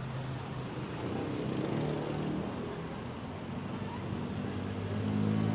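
Street traffic: vehicle engines running with a steady low hum, swelling about two seconds in and again near the end.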